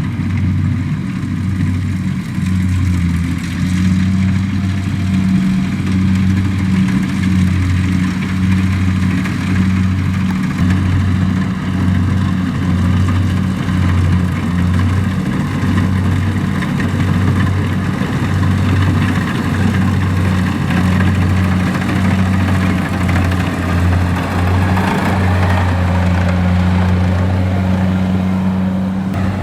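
Kubota DC-70 rice combine harvester running steadily: a constant diesel engine drone with the noise of its machinery over it.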